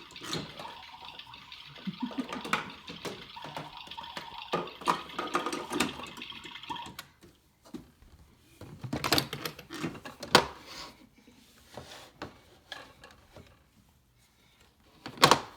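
A toy play kitchen's electronic sound effect: a steady, hissing, water-like loop that stops about seven seconds in, with plastic toy pieces clicking and knocking as they are handled. After it stops, only scattered knocks of plastic pieces are left, a couple of them sharper.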